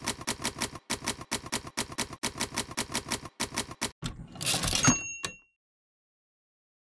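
Manual typewriter typing sound effect: a fast run of key clacks, about seven a second, for roughly four seconds, then the carriage return with a short bell ding about four and a half seconds in, after which the sound stops.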